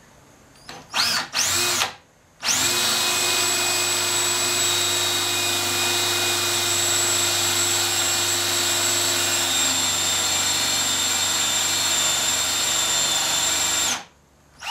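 Power drill with a 7/8-inch Forstner bit spins up briefly twice about a second in, then runs steadily for about eleven seconds, boring an angled shoulder recess into a wooden chair post, and stops near the end.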